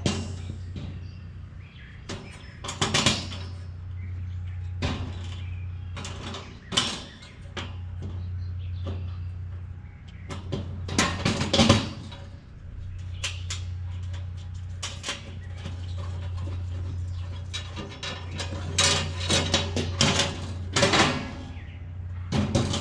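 Galvanized steel raised-bed panels and bolts being handled and fitted together: irregular metallic clanks, knocks and clinks, in clusters around three, eleven and twenty seconds in. A steady low hum runs underneath.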